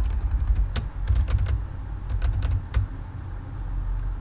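Typing on a computer keyboard: irregular clicking keystrokes, each with a dull low thud, a few a second with short pauses between them.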